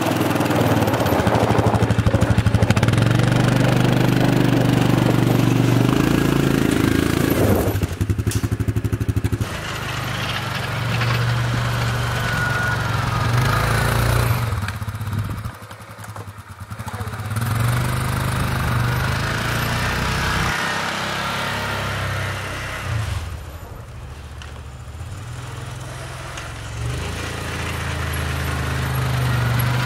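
Engine of a snow-moving vehicle running and revving under changing load. It fades twice, around the middle and again later, then comes back.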